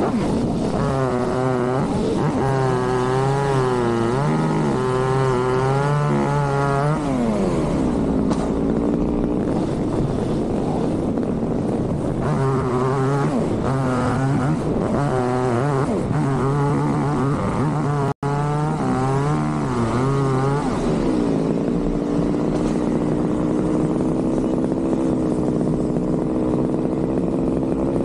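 Chainsaw running at high revs with its pitch wavering as it cuts, in two long stretches. Between them a steadier, lower engine note holds.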